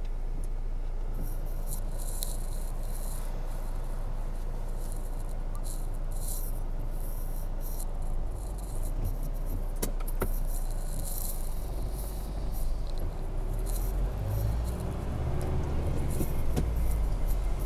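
Car cabin noise: the engine hums steadily while stopped, with scattered light ticking and rattling. A sharp click comes about ten seconds in. From about twelve seconds the low rumble grows louder as the car pulls away and gathers speed.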